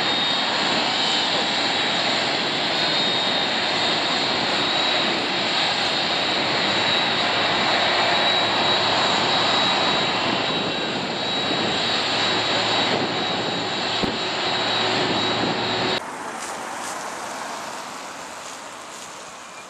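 Jet airliner engines running steadily on the apron: dense engine noise with a steady high whine over it. About three-quarters of the way through it cuts abruptly to a quieter, more distant aircraft rumble that fades away.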